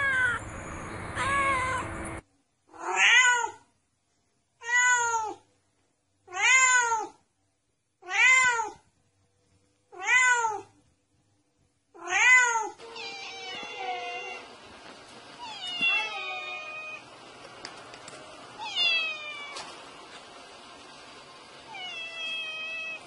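Domestic cat meowing over and over. In the middle come six alike meows about two seconds apart with silence between, each rising then falling in pitch; after that, more meows that fall in pitch over a faint hiss.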